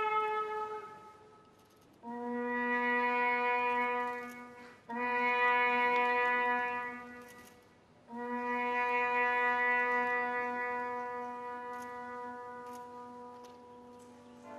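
Shofar (ram's horn) sounding long held blasts. A blast fades out about a second in, then come three long notes: two of about three seconds each and a last one of about six seconds that slowly fades.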